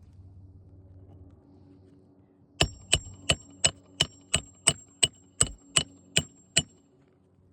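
A hammer striking metal about a dozen times in a steady run, roughly three blows a second, each blow with a high metallic ring, as in hand-nailing a roofing shingle.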